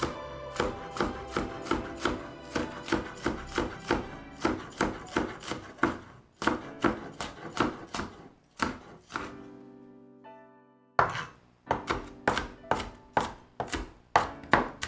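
Kitchen knife chopping a jalapeño on a wooden cutting board, quick even strokes about three a second. The chopping stops for about two seconds past the middle, then starts again.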